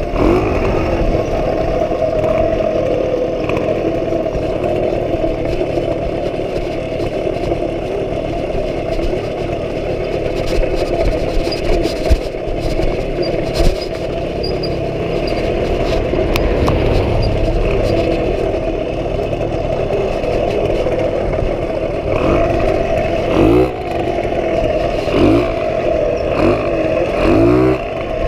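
1977 Puch Pinto moped's single-cylinder two-stroke engine running steadily under way, with a few knocks and rattles about halfway through. In the last few seconds the revs rise and fall several times.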